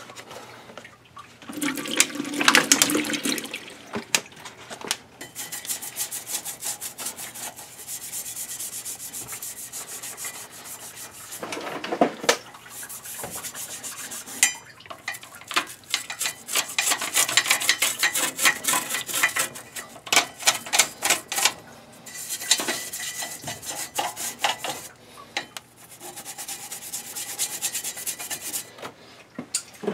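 A firm-bristle poly brush scrubs the wet heat exchanger of an IBC SL28-160 condensing propane boiler in quick back-and-forth strokes, with short pauses between spells. The brush is loosening flue-side deposits so they rinse down into the condensate trap.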